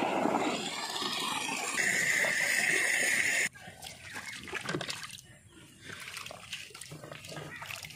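Water rushing steadily along a stone irrigation channel, cutting off suddenly about three and a half seconds in. After that come softer splashes and trickling as water and live fish are tipped out of a plastic bucket onto a flat stone.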